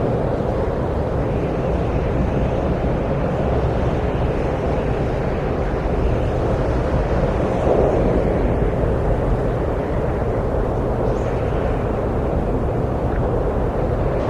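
Wind blowing steadily: a deep, even rushing noise that swells a little about eight seconds in.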